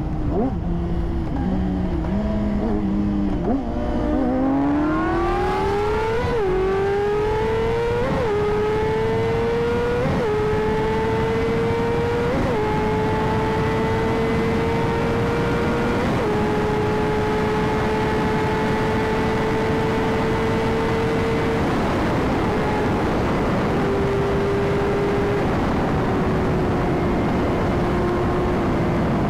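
Yamaha R6 inline-four sportbike engine accelerating hard through the gears, with five quick upshifts about two seconds apart, each a climbing pitch that drops back. It then holds a steady high-revving cruise that eases slightly near the end, over steady wind rush.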